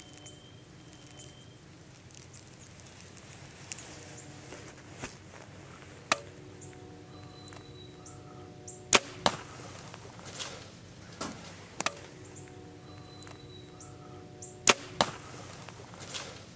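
Elite Pulse compound bow shot at a deer: several sharp cracks, the loudest coming twice as a pair about a third of a second apart, the bow's release followed by the arrow striking.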